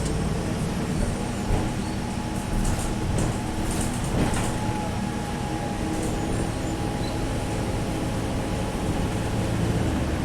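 Alexander Dennis Trident bus engine running under way, its turbocharger giving a steady whistle over the engine drone that grows clearer about four seconds in, with a few light rattles shortly before.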